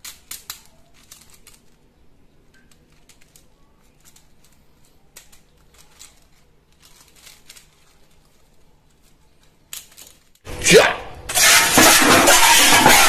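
Light, scattered clicks and rustles of plastic toy parts and packaging being handled. About ten seconds in, a loud, dense noise starts suddenly and keeps going.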